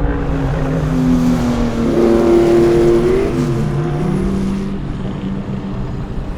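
Historic racing car's engine running at speed on track, its pitch dropping about three seconds in and holding lower as the car goes by.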